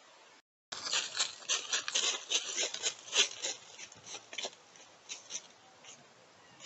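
Rapid, irregular rustling and scratching close to a trail camera's microphone. It starts just under a second in after a brief dropout, is busiest for the next few seconds, and thins to scattered scrapes near the end.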